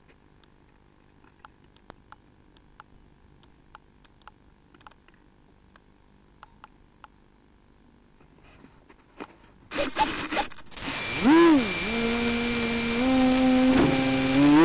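Faint clicks over near silence, then about ten seconds in electronic synthesizer music starts loudly with sweeping pitch glides and settles into sustained notes that step upward.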